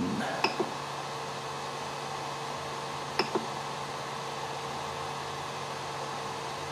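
Ender 3 3D printer's cooling fans running with a steady whirring hum. A few short clicks of its control knob being pressed come through it: two about half a second in and two more about three seconds in.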